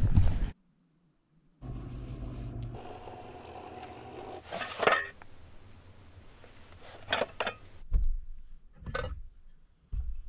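Camping mugs, a small pot and a pour-over coffee dripper being handled and set down: scattered clinks and knocks, several separate ones a second or two apart.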